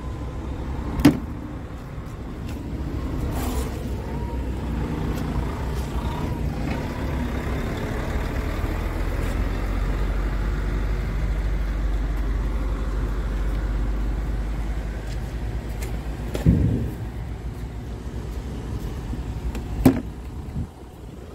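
Scania R tractor unit's diesel engine idling steadily, with a few sharp knocks from handling: one about a second in and two near the end.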